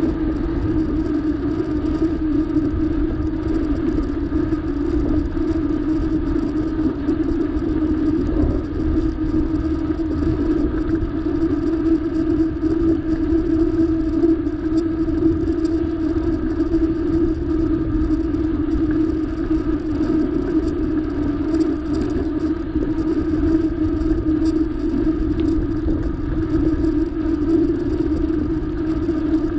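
Steady riding noise from a moving bicycle: wind rumbling on the microphone and a constant hum with no changes.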